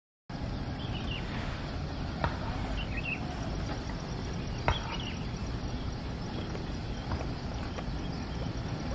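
Early-morning rural outdoor ambience that cuts in abruptly just after the start: a steady low rumbling noise with a few short, high bird chirps scattered through it. Two sharp clicks stand out, one about two seconds in and a louder one near the middle.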